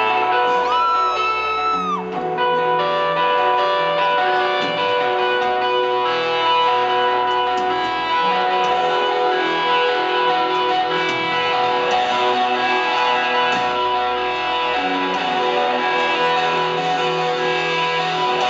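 Live rock band's electric guitar played loud through an arena PA, ringing chords and sustained notes, with one note bent up and held about a second in.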